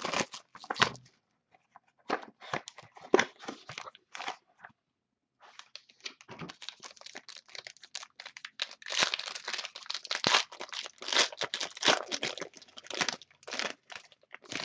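Plastic wrapper of a sports trading-card pack crinkling and tearing as it is opened by hand, in two spells of crackling with a short pause between.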